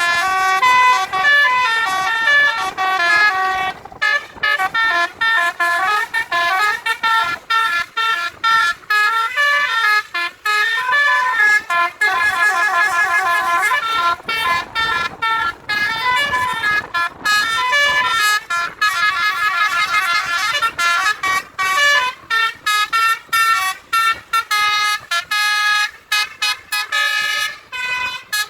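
Indonesian bus "telolet" basuri multi-tone air horns playing a long melodic run of short notes that change pitch every fraction of a second, with brief breaks between phrases. Twice the notes turn into fast warbling trills.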